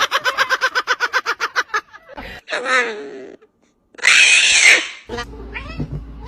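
A bird's fast run of repeated clucks, about eight a second, then a falling call and a loud harsh screech about four seconds in, followed by a low hum with a few short chirps near the end.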